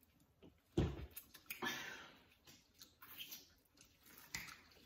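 Eating sounds: chewing and plastic-gloved hands handling seafood-boil food, with scattered small clicks, a thump about a second in and a short rustle just after.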